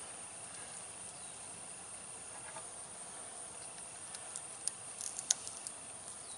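A few light, sharp clicks of a snap ring and spacers being handled and pressed onto the end of an air-brake S-cam shaft, starting about four seconds in; the loudest comes a little past five seconds. Before the clicks there is only a faint steady hiss.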